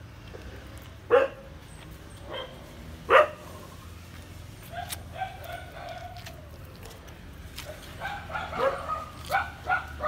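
Puppies yipping and barking: two sharp yelps about a second and three seconds in, then a rapid run of short yips over the last two seconds.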